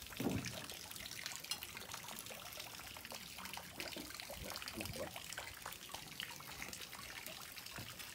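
Sardines softly sizzling and crackling over the coals of a Weber charcoal kettle grill, with many small pops. There is a brief low thump just after the start.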